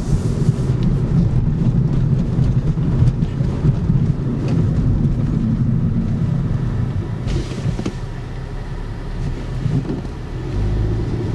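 Skoda car driving slowly, its engine running steadily under a low road rumble.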